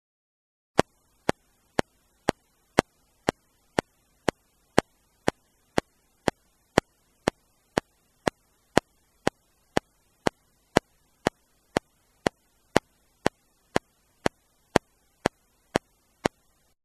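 Steady, even ticking sound effect of the clock or metronome kind, two sharp ticks a second, starting a little under a second in and stopping shortly before the end.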